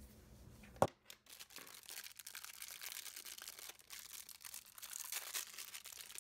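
Packaging being crinkled and torn open by hand, a dense run of small crackles, after one sharp click a little under a second in.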